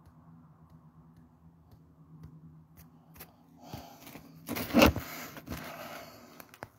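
Scraping and rustling handling noise, loudest about five seconds in, with a few sharp clicks, over a faint low hum.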